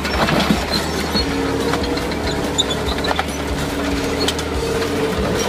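A tank's engine running and its tracks clattering as it climbs onto a minivan and crushes it, with many short cracks and crunches.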